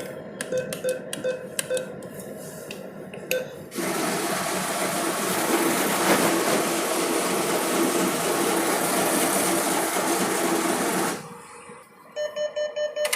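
ATM machine's internal mechanism working. It opens with a run of regular clicks, then about four seconds in a loud steady motor whir starts, runs for some seven seconds and cuts off suddenly. Near the end a fast series of short, even mechanical pulses starts.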